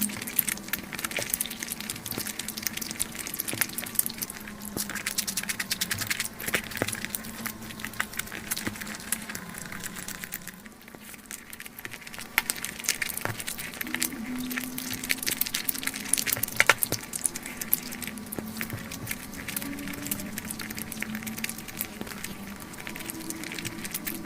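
Close-miked eating of fried chicken leg pieces: a dense run of crisp crunches, chewing clicks and mouth smacks, easing off briefly about ten seconds in.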